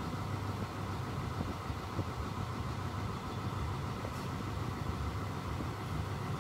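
Steady low engine rumble with no distinct events, like a running motor or traffic.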